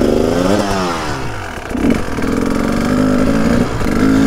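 KTM 300 TPI two-stroke single-cylinder enduro engine being ridden, its pitch following the throttle: it falls away about half a second in, picks up and holds from about two seconds, and climbs again near the end.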